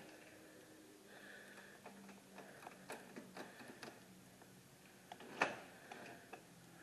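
Faint scattered ticks and taps, with one louder knock about five and a half seconds in.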